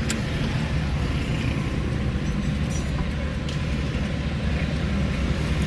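Car's engine and tyre noise heard from inside the cabin, a steady low rumble with a few faint clicks.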